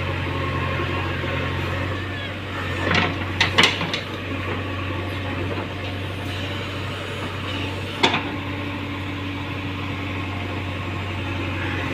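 JCB 3DX backhoe loader's diesel engine running steadily with a low drone, with a quick cluster of sharp knocks about three seconds in and a single knock about eight seconds in.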